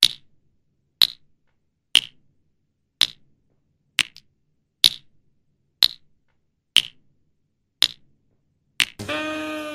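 Sharp clicks, one a second, ten in all, each marking a step of a countdown. Music with pitched, plucked-sounding notes begins near the end.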